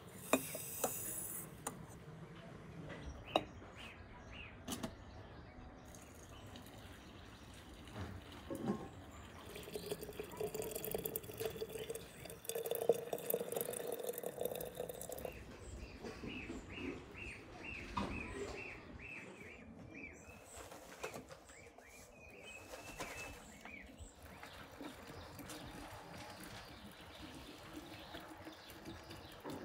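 Water poured from a spout into a large glass jar packed with apricots, a stream lasting about six seconds midway through. A few light knocks come early on, and birds chirp in short repeated notes afterwards.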